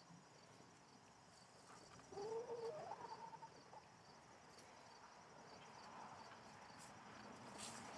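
A faint bird call about two seconds in, lasting under two seconds, rising and then held, over near silence with a faint, even, high-pitched chirping.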